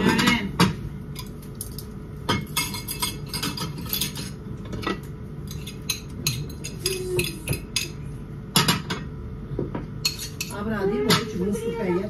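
Cutlery and dishes clinking and clattering in irregular knocks over a steady low hum.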